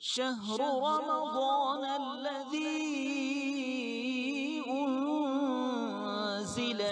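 A voice chanting a slow, melismatic melody in long, wavering held notes over a steady low note, starting suddenly out of silence.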